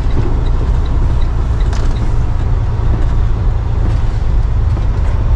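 Semi-truck tractor's diesel engine running with a steady low rumble, heard inside the cab along with road noise. A faint regular ticking sounds in the first second or two.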